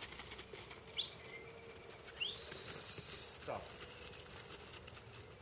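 Sheepdog handler's whistle command to a working kelpie: a short rising chirp about a second in, then one long, steady, high whistle that rises into its note and lifts again as it ends.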